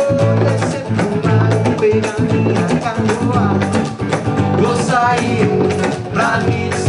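Band music in a samba-rock style: guitar, bass and drums playing a steady beat, with a sung vocal line coming in near the end.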